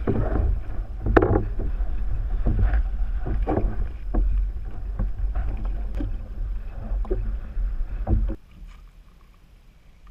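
Water splashing and knocking against a kayak hull in irregular strokes, over a low rumble on the microphone. It cuts off abruptly about eight seconds in, leaving only faint background.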